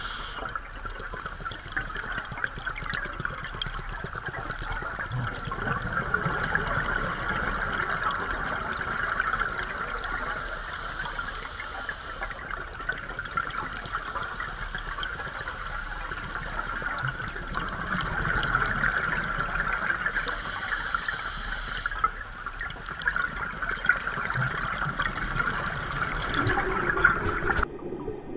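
Underwater sound picked up by a diver's camera: a steady muffled water hiss, with bursts of the scuba diver's exhaled regulator bubbles about every ten seconds.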